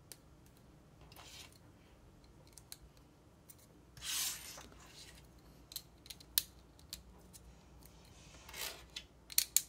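LEGO plastic parts being handled and fitted together on an axle: faint sharp clicks with a few short rustling scrapes, the loudest about four seconds in, and several clicks close together near the end.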